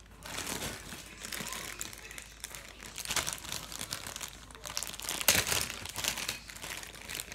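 Hands squishing and kneading slime, with crackling and crinkling on and off and a louder crackle about five seconds in.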